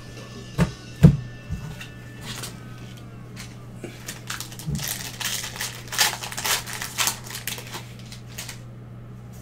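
A few knocks about a second in as a card pack is lifted out of its box, then several seconds of crinkling and crackling as the foil wrapper of a Panini Prizm football pack is torn open and the cards slid out. A steady low hum runs underneath.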